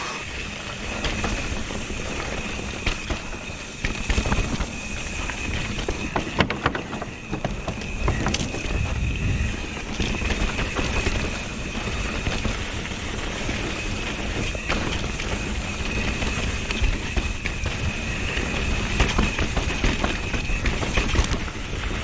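Mountain bike descending a rocky dirt trail at speed: tyres rumbling over dirt and stones, the bike rattling and knocking over bumps, and wind buffeting the microphone. A steady high buzz runs under it.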